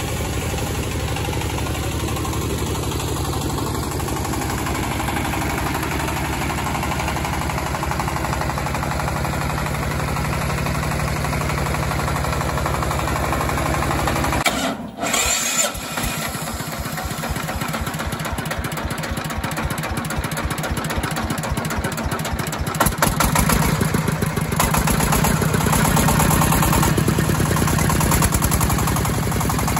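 A single-cylinder Chinese diesel engine of about 25 hp runs steadily, driving a belt-driven air compressor. About halfway the sound changes to a close-up of the engine, where each firing stroke is heard as a separate beat. It gets louder again in the last quarter.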